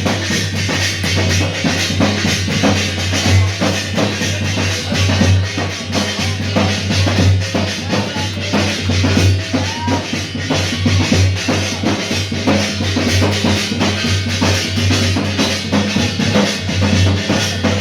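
Loud music with a steady, heavy drum beat.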